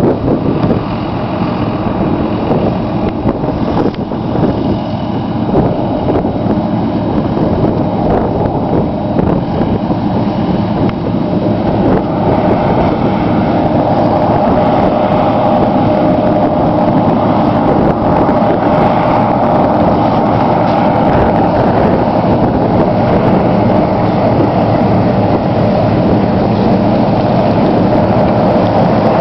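Claas Lexion 570 combine harvester running steadily while harvesting barley, with a continuous machine drone. A steady whine grows louder about twelve seconds in.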